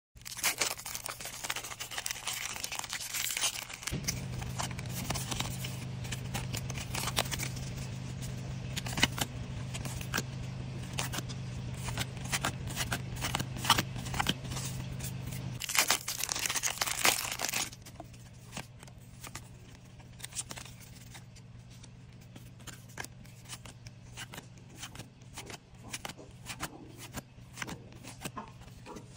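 Pokémon trading cards being flipped through by hand: many small clicks and slides of card stock on card stock, with the crinkle of foil booster-pack wrapper at moments, loudest about 16 to 17 seconds in. A low steady hum runs underneath from about 4 seconds in until about 15 seconds.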